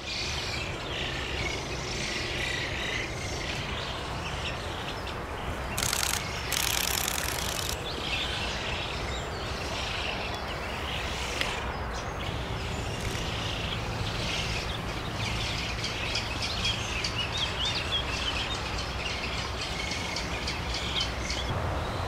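Young Eurasian spoonbills calling in their colony, a busy chatter of high chirping calls over a steady low rumble, with a short rush of noise about six seconds in.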